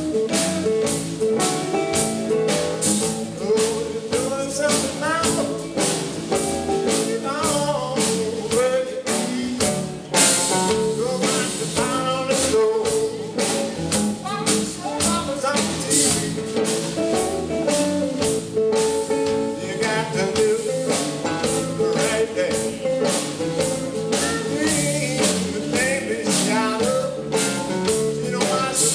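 Live blues: a man singing into a microphone while strumming an acoustic guitar in a steady rhythm.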